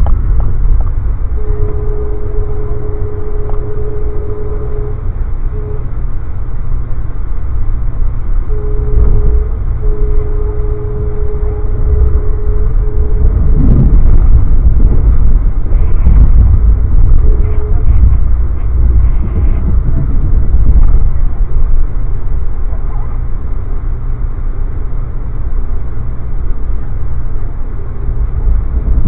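Amtrak passenger train running at speed, heard from inside a coach: a loud, steady low rumble. In the first half a steady mid-pitched tone sounds on and off, first one long stretch and then several shorter ones.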